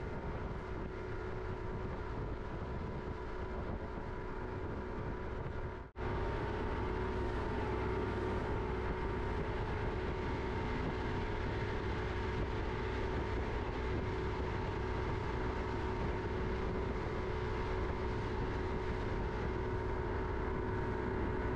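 A motorboat under way, its engine running at a steady speed over a hiss of rushing water and wind. About six seconds in the sound cuts out for a moment, then comes back a little louder and stays steady.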